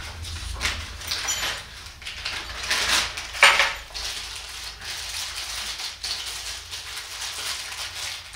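Small hardware pieces from a bicycle handlebar phone mount kit (hex keys and spacers) being handled, rattling and clinking in a series of brief noises, the loudest about three and a half seconds in.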